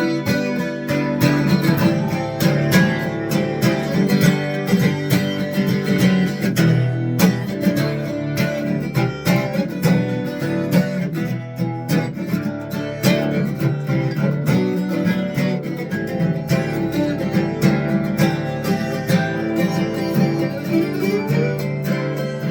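12-string acoustic guitar in drop-D tuning, played solo without vocals: fingerpicked and strummed riffs with the doubled strings ringing and a low D bass droning under the melody.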